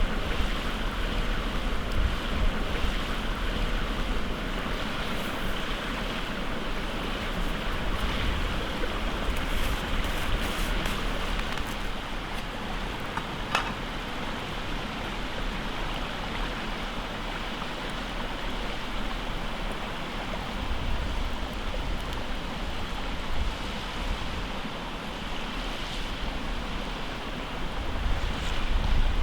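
Steady rushing noise with wind buffeting the microphone, and a single sharp click about halfway through.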